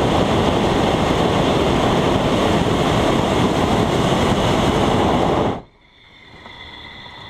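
Hot air balloon's propane burner firing overhead in one long, steady blast that cuts off sharply about five and a half seconds in, leaving a much quieter steady hiss.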